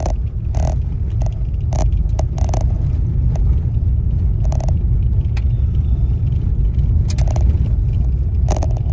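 Inside a moving vehicle on a dirt road: the steady low rumble of the engine and tyres, with irregular sharp knocks and clicks every second or so.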